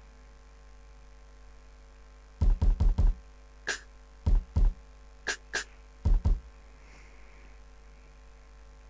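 Drum-machine samples in Bitwig Studio's Drum Machine, sounded one at a time as keys on the piano-roll keyboard are clicked. There are about eleven separate hits starting a couple of seconds in: a quick run of four deep thuds, then sharper, brighter hits mostly in pairs.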